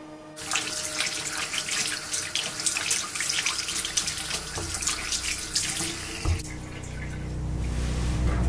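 Water running from a tap and splashing, starting about half a second in. A low drone swells underneath from about six seconds in.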